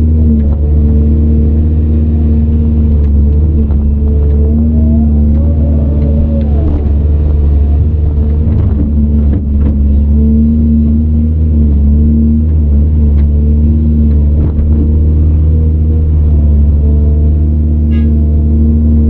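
CAT 395 excavator's diesel engine running steadily under load as the machine works, its note dipping and rising slightly. A few short knocks and clunks come about halfway through.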